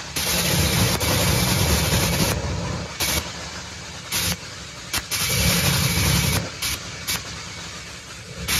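Supercharged, nitromethane-burning V8 of a Top Fuel dragster running during a pit warm-up: a loud, rough engine sound whose loudness surges and drops back several times.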